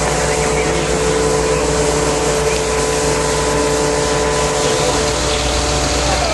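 Fire engine's engine and water pump running steadily, a loud even hum over a rushing hiss; the strongest hum tone fades about five seconds in.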